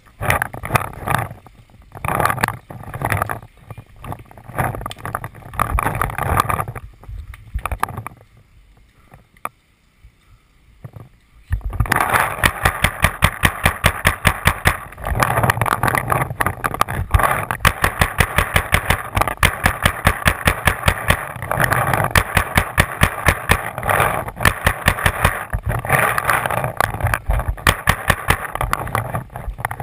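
Paintball marker fire: a fast, even stream of sharp pops at about four shots a second, starting about twelve seconds in and keeping on without letup. Before it come irregular thuds and rustles of a player moving through brush, then a short lull.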